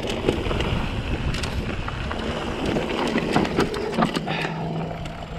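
Wind rushing over the microphone, with the clatter and knocks of a mountain bike riding over a rocky trail. A short steady hum comes in about four seconds in.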